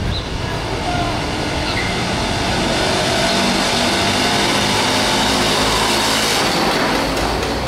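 Small motorcycle engine pulling a cargo trailer, running and growing louder as it approaches and passes close by, then fading near the end, over steady street traffic noise.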